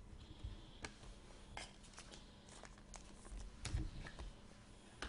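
Faint rustles and scattered light clicks of trading cards being handled and set down on a tabletop, with a soft thump a little before four seconds in.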